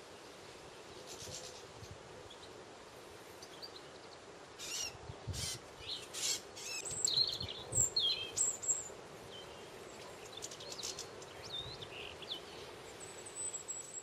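Small songbirds chirping and twittering in short, scattered high calls, busiest from about five seconds in, over a steady low background hum.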